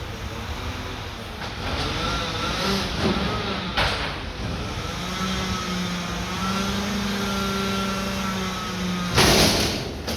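Mack McNeilus front-loader garbage truck running, a steady engine drone that rises in pitch around the middle. A short hiss comes about four seconds in, and a louder hiss about nine seconds in.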